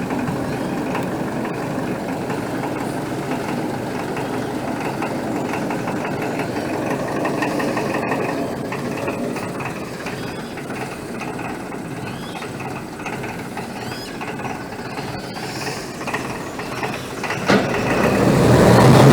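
A century-old work barge's engine running steadily, with a fast even chugging. It gets much louder in the last second or two.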